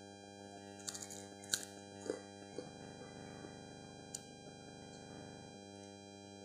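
Crisp crunches of a kerupuk cracker being bitten and chewed: several sharp crunches in the first two seconds and one more about four seconds in, over a faint steady hum.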